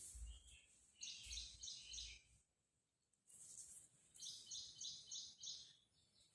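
Faint bird calls: two short runs of quick repeated high chirps, one about a second in and a longer one past the middle, with a few soft low bumps.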